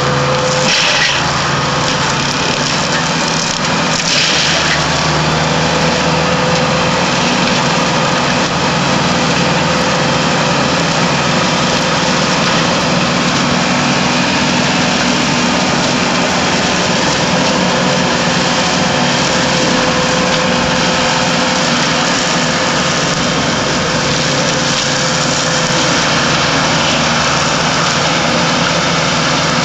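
Tractor engine under load driving a forest mulcher whose rotor of swinging steel hammers shreds brush and branches, a steady loud mechanical din. Two brief louder bursts of shredding come about one and four seconds in.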